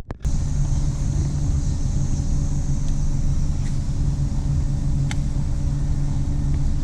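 An engine running steadily under way, with a deep rumble and a steady drone that holds one pitch.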